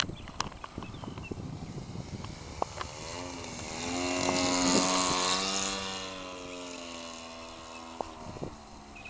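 The converted 25cc Cub Cadet (Stihl) trimmer engine of a giant-scale RC plane making a close flyby: its buzz swells to a peak about five seconds in, drops slightly in pitch as the plane passes, then fades away. A few sharp clicks come in the first seconds.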